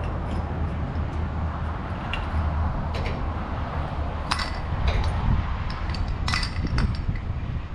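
Steady low diesel rumble of a Peterbilt 389 semi truck, with a scatter of sharp metallic clinks and rattles over it, the loudest about halfway through and again near the end.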